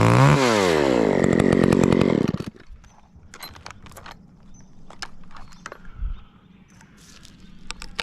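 Chainsaw engine running, briefly rising in pitch, then shut off and winding down to a stop about two and a half seconds in. After that, light clicks and knocks, with a dull thump about six seconds in.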